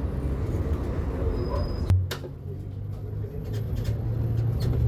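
Mercedes-Benz eO500U electric bus running with a steady low hum. There is a sharp knock about two seconds in, and a faint rising whine near the end.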